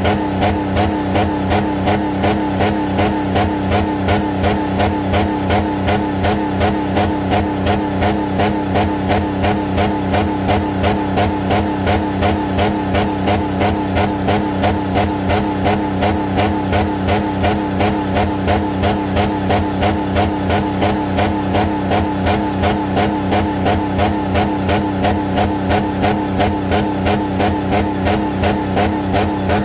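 Jeep Commander engine running with water in its oil pan, with a steady rhythmic pulse about two and a half times a second.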